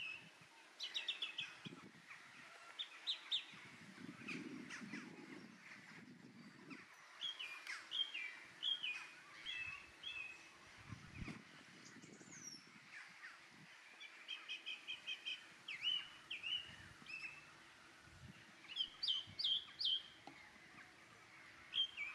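Birds chirping: series of short, high, quick notes coming in bursts, with lulls of a few seconds between them, over a faint low rumble.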